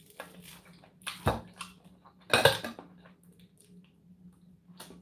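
Metal fork clinking and scraping on a ceramic plate while eating, with two louder clinks about a second apart near the middle.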